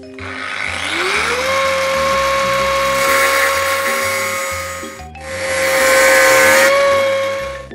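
Makita angle grinder spinning up about a second in, then grinding a steel plate: a steady motor whine over the rasp of the disc on metal. It breaks off briefly about five seconds in, then grinds again, louder.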